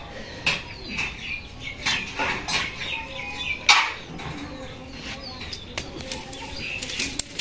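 Small birds chirping and calling in short, repeated bursts, with scattered sharp clicks; the loudest click comes a little before four seconds in.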